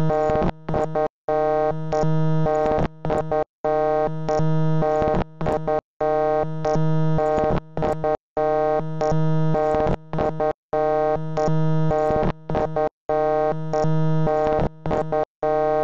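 Looping electronic tone: a held, buzzy chord broken by brief gaps and rapid clicks, the pattern repeating about every two and a half seconds.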